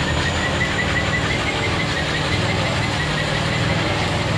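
Scania truck's diesel engine idling steadily.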